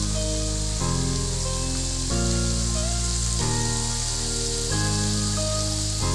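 Battered squid rings deep-frying in hot oil, sizzling steadily. Background music plays over it, a sustained chord that changes about every second and a half.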